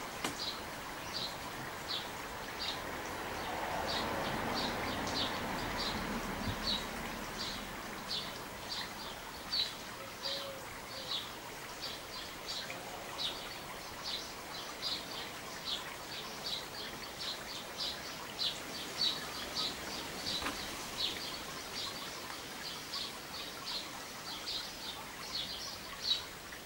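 A small bird chirping over and over, short high chirps about two a second, steady throughout. A soft rush of background noise swells for a few seconds near the start.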